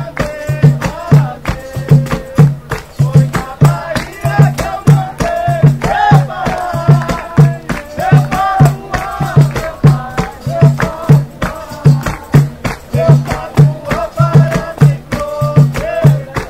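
Live samba band playing an instrumental passage: a steady low drum beat about twice a second under shakers and other hand percussion, with a melody line over the top.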